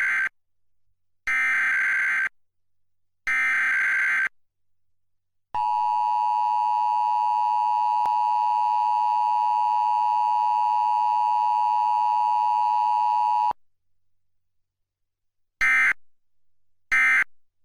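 Emergency Alert System required monthly test tones: the end of the first SAME header data burst, then two more one-second header bursts a second apart, then the eight-second two-tone attention signal. After a pause come two short end-of-message data bursts, signalling that the alert is over.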